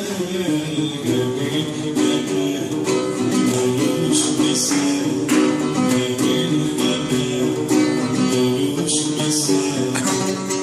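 Oud being played, a running melodic line of plucked notes.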